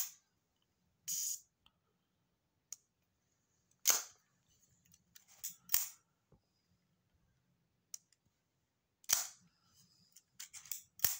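FED 5 35 mm rangefinder camera being worked by hand: sharp mechanical clicks and short ratcheting bursts from its cloth focal-plane shutter and film-advance mechanism, repeated every one to three seconds.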